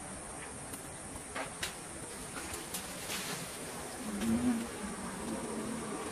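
Steady high-pitched insect drone of forest ambience, with a few faint sharp ticks of leaves and twigs and a brief louder low sound about four seconds in.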